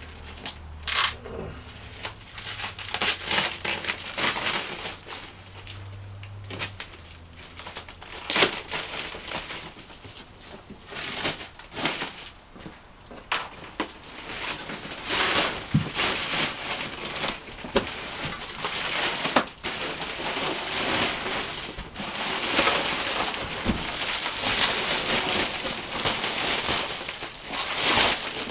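Clear plastic stretch wrap crinkling and rustling in irregular bursts as it is pulled off a cardboard box and crumpled up, with a few sharper crackles.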